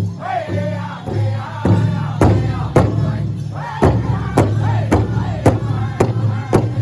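Powwow drum group singing in chorus over a large shared hand drum struck in a steady beat, about two strokes a second.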